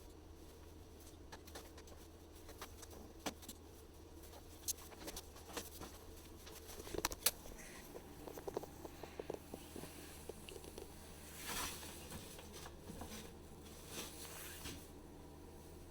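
Scattered light clicks and taps, with a cluster of small knocks midway and a brief rustle about eleven and a half seconds in, over a faint steady hum: small parts or tools being handled.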